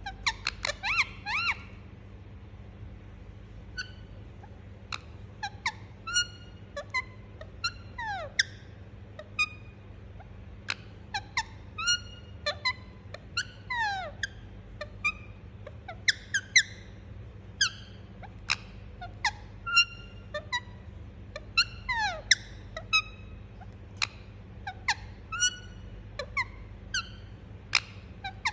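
Indian ringneck parakeet giving short, sharp chirps and calls every second or so, many sliding down in pitch, with a quick run of calls about a second in. A steady low hum sits underneath.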